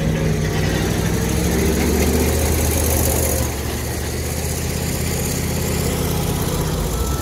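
Heavy dump truck's diesel engine running steadily, easing off a little about halfway through.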